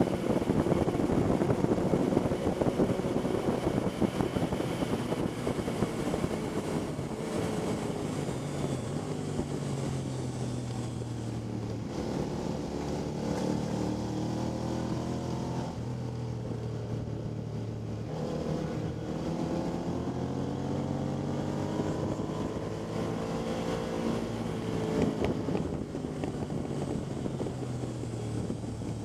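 Motorcycle engine under hard riding on a racetrack, its pitch climbing as it accelerates and dropping off between gears and corners several times. Heavy wind noise over the microphone at high speed for the first few seconds.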